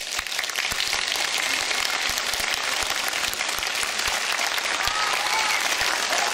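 Audience applause, swelling up at the start and then holding steady.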